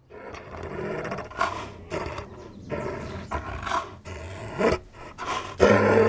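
A large animal roaring and growling in a series of short, rough calls, the loudest near the end.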